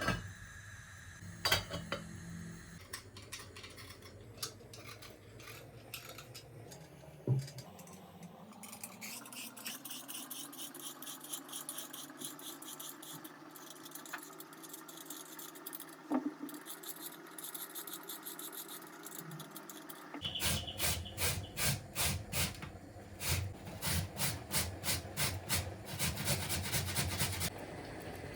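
Kitchen food-preparation sounds: a few scattered clicks and knocks, then a run of regular scraping strokes, about two to three a second, starting about two-thirds of the way in and stopping shortly before the end.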